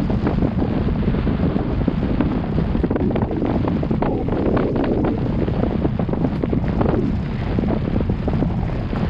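Wind buffeting the action camera's microphone during a mountain bike ride, with the CTM Scroll 2018 bike's tyres on the trail and many quick rattling clicks and knocks from the bike over rough ground.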